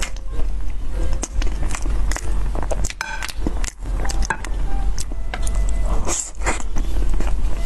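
Close-miked chewing of soft pork floss sponge cake, with many sharp wet clicks and lip smacks and a fresh bite a little past halfway.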